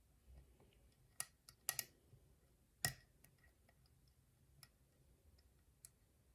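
Faint, sparse metallic clicks of a lock pick and tension tool working inside an old wafer lock as it is being picked, about half a dozen over several seconds, the loudest about three seconds in.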